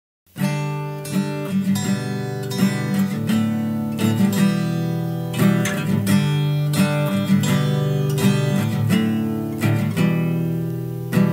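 Acoustic guitar strumming a steady run of chords, starting suddenly just after the beginning.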